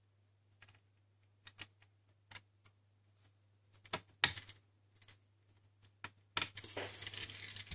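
Small clicks and taps of a precision screwdriver and tiny screws against an open laptop's metal case and parts, growing busier, with one sharp click about four seconds in. About six and a half seconds in, a dense clicking rattle of small metal parts begins and carries on.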